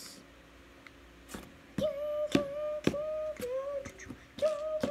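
A high voice making wordless, sing-song vocal sounds: two runs of short held notes, all at about the same pitch, starting about two seconds in and again near the end. Sharp clicks fall among the notes, from toys being handled and tapped on the table.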